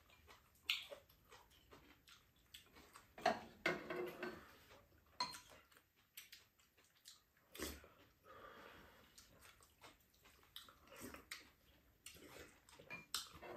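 Quiet tableware sounds: spoons and chopsticks clicking against bowls and a pan now and then, with soft eating noises in between.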